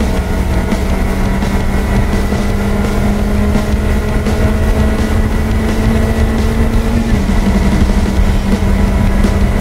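Lotus Elise engine running hard down a straight, heard from inside the car, with a steady note that rises a little about seven seconds in. Road and tyre noise from the wet track lie under it.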